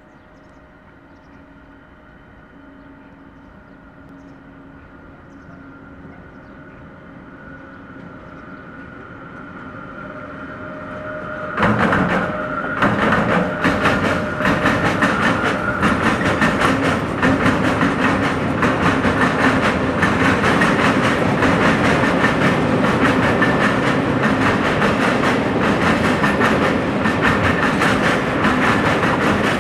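A freight train of hooded steel-coil wagons hauled by a Renfe class 253 electric locomotive. It approaches with a steady whine that grows slowly louder, then passes close about twelve seconds in. After that come the loud rumble and dense, rapid clicking of the wagons' wheels running by.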